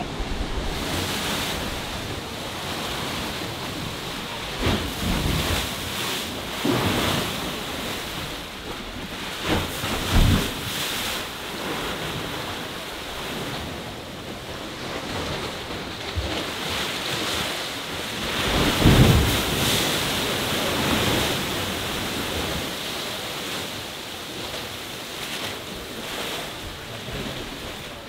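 Ocean waves crashing and surging against a rocky shore, with wind buffeting the microphone. Several surges come through, the biggest about two-thirds of the way in.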